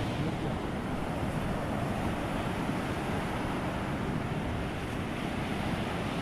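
Sea surf washing onto the beach in a steady, unbroken rush, with wind buffeting the microphone.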